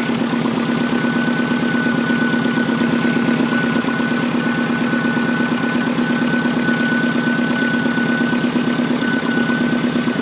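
Subaru WRX turbocharged flat-four engine idling, with a steady high-pitched whistle from the power steering pump running over it.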